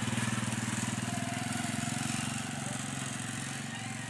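A small step-through motorcycle's engine running as it rides away, its steady putter slowly fading.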